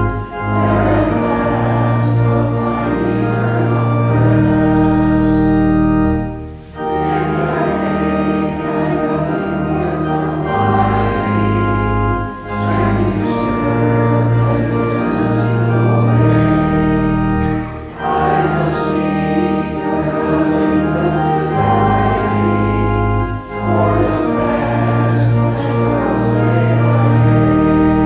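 Church organ music in hymn-like phrases: sustained full chords, each phrase five to six seconds long and ending with a short dip before the next begins.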